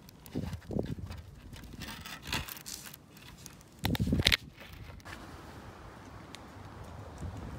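Handling noise from the recording phone: rubs and knocks, with a loud scuffing brush against denim about four seconds in. After that comes a steady outdoor hiss of light wind on the microphone.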